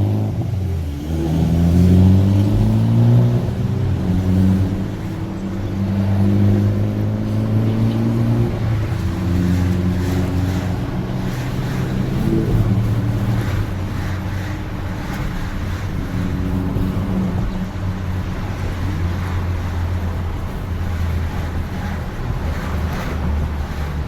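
Car engine accelerating, its pitch climbing and dropping back several times as it goes up through the gears, then running steadily at a constant speed for the rest of the time.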